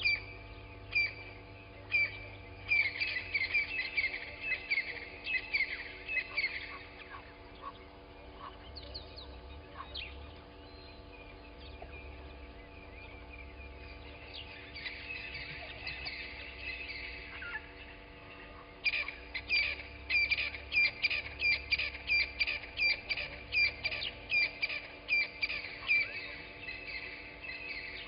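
Wild birds chirping and calling in a morning dawn chorus, many short high chirps, sparse at first and coming in quick, dense runs in the last third. A faint steady electrical hum runs underneath.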